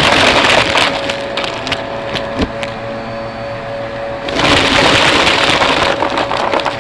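Vacuum cleaner running with a steady motor hum. Twice, first for about a second at the start and again for nearly two seconds later on, it gets louder with a rush of crackling and clicking as debris rattles up into the nozzle.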